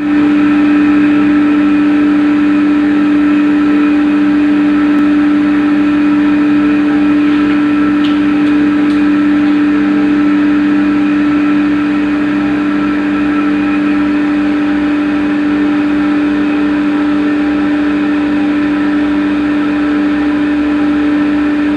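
CNC machine running, a loud steady hum at one unchanging pitch with overtones.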